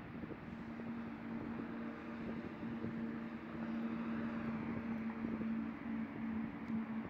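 Outdoor background noise: a steady low hum under a broad rushing haze, with wind buffeting the phone microphone.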